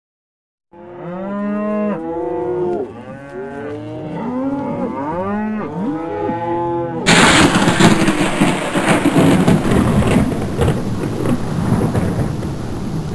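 Cattle mooing, several drawn-out calls one after another. About seven seconds in, a thunderstorm cuts in suddenly: rumbling thunder with heavy rain.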